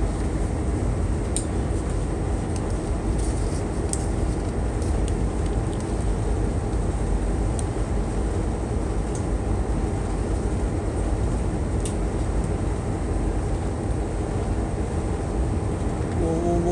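Steady low drone of a towboat's diesel engines and hull vibration, heard inside the boat while under way. A few faint light clicks sit on top.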